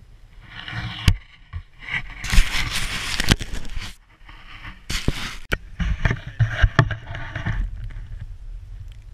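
Skis slicing through deep powder snow in surges of hiss, with a brief lull about four seconds in, sharp knocks against the camera mount, and a low wind rumble on the microphone.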